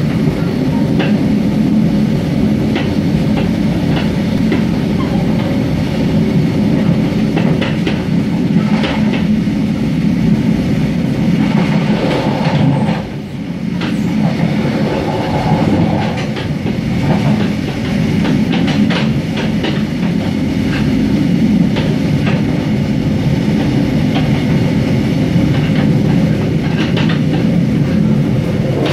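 Mugunghwa-ho passenger train running at speed, heard from inside the carriage: a steady low rumble of wheels on rails with scattered clicks from the rail joints. It goes briefly quieter about halfway through.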